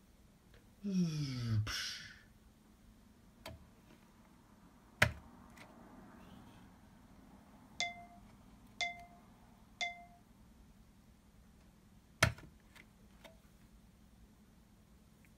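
Separate homemade sound effects: a brief sound with a falling pitch about a second in, a few sharp knocks, and three identical short ringing dings about a second apart in the middle.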